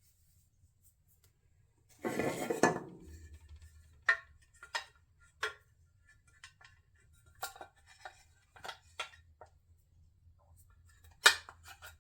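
Hands working insulating tape and small metal motor parts: a short rustle of tape about two seconds in, then a scattered series of light metallic clinks and taps, the sharpest near the end.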